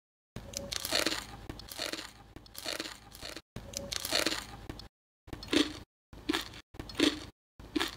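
Close-up crunching and chewing as crackling pork belly, its puffed, crisp skin made in an air fryer, is bitten into, in a run of crunchy bursts with short pauses between them that grow shorter and choppier in the second half.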